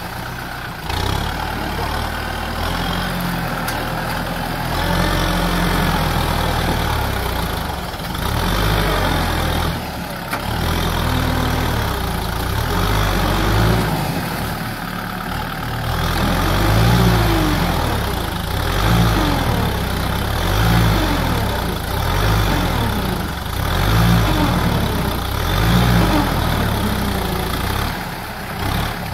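Kubota tractor's diesel engine working under load as it drives through deep muddy water, the engine note swelling and easing again and again. Water sloshes and splashes around the wheels.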